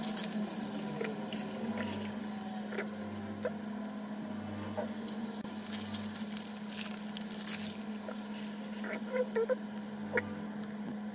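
Foil booster pack wrapper crinkling and Duel Masters trading cards sliding and flicking against each other as they are handled, in scattered light rustles and ticks over a steady low hum.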